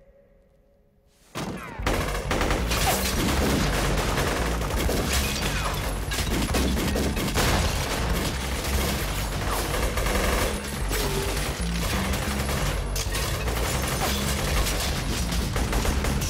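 A film gunfight: after about a second and a half of near silence, dense, continuous pistol and automatic gunfire breaks out, with bullets chipping stone pillars and debris scattering. Electronic music with a heavy, steady beat runs underneath.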